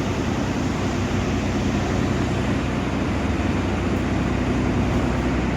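Steady, loud running of the ventilation system in an environmentally controlled poultry house: large exhaust fans giving a continuous low hum under a broad rushing of air.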